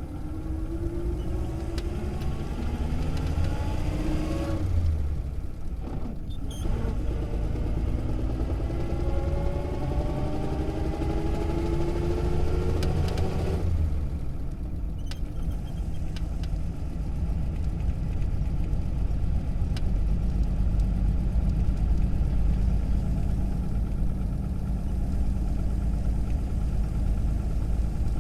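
Interior sound of a 1937 Plymouth's flathead straight-six pulling hard: the engine pitch climbs, breaks off about five seconds in for a gear change, and climbs again. From about halfway the car runs on at speed with a steady low rumble and no clear engine note.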